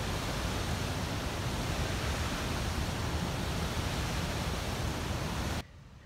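Steady rush of a waterfall cascading over rocks, an even roar with no distinct events, cutting off abruptly about five and a half seconds in.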